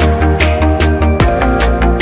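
Background electronic music with a heavy pulsing bass and a steady beat.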